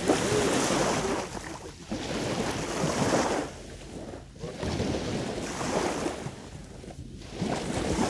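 Sea waves washing onto the shore in surges about every two seconds, with wind buffeting the microphone.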